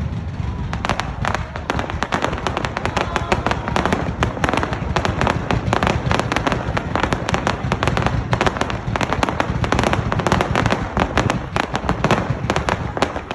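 Fireworks going off in a dense, continuous barrage: many sharp bangs and crackles a second over a low rumble.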